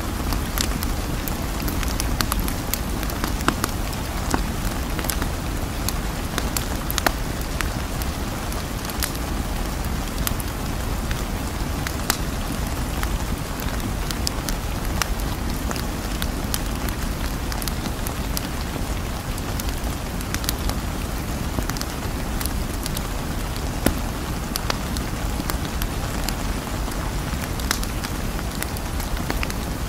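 Steady rain noise with many small, sharp drop ticks scattered irregularly through it.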